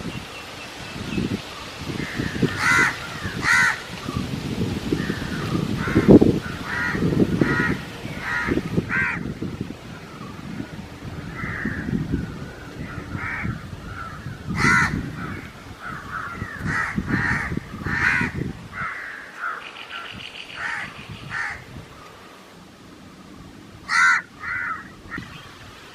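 Wind gusting through tree leaves and buffeting the microphone with a low rumble, easing off after about 19 seconds. Over it, harsh bird calls come again and again in short runs, loudest about 15 and 24 seconds in.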